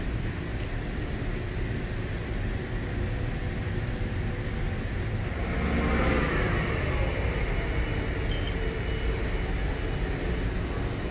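Hyundai WIA VX-650/50 vertical machining center running, its table traversing along the X axis: a steady machine hum with a whine that falls in pitch about six seconds in, then a thin steady high tone after a brief click.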